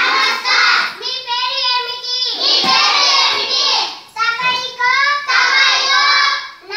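A class of young schoolchildren chanting loudly together in a sing-song chorus, phrase after phrase with short pauses, reciting phrases in Nepali.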